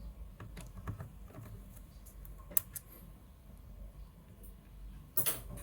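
Scattered light clicks and taps from handling a laptop and its small parts, with one sharper click midway and a brief rustle near the end.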